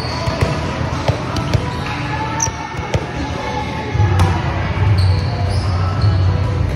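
Volleyball gym ambience: scattered thuds of volleyballs being hit and bouncing on the hardwood floor, over a background of voices echoing in the large hall.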